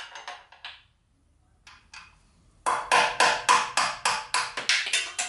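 Hammer blows knocking a stuck part loose: a few knocks at the start, then a quick run of about five sharp strikes a second through the second half.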